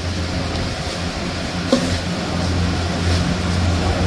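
A steady low mechanical hum, with a single light click a little under two seconds in.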